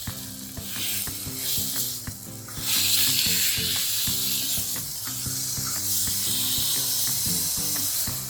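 Raw chicken pieces sizzling in hot oil and vindaloo masala in a pan, with a few stirring clicks. The hiss swells about three seconds in and then holds steady.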